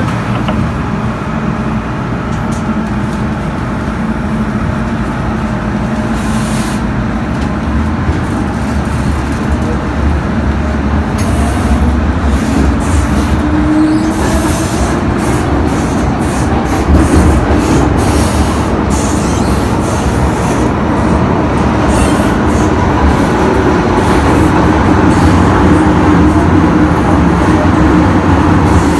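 MTR Island Line M-Train electric multiple unit heard from inside a passenger car, pulling away from a station and running through the tunnel: wheels rumble on the rails and the traction motors whine, their pitch rising about halfway through. The whole sound grows gradually louder as the train gathers speed.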